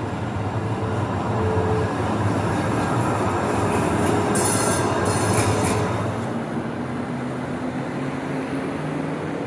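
Heavy vehicle passing close by, a steady rumble that grows louder toward the middle and eases after about six seconds, with a short hiss about halfway through.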